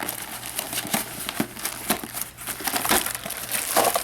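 Packaging crinkling and rustling with scattered light knocks as a vacuum cleaner head is unpacked from its box.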